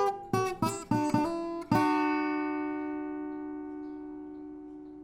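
Acoustic guitar: a handful of quick strummed chords, then a last chord about a second and a half in that is left to ring out and slowly fade, ending the take.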